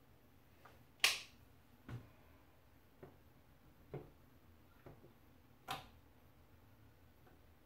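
About six short, sharp clicks roughly a second apart, the loudest about a second in, as the controls of a slow cooker are pressed to set it.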